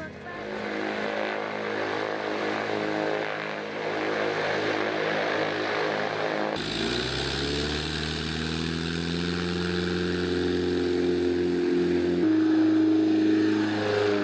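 Propeller engine of a Storch ultralight aircraft running, heard through several abrupt cuts. After the first cut the engine note climbs steadily as it goes to takeoff power. Near the end the pitch falls as the aircraft passes close overhead.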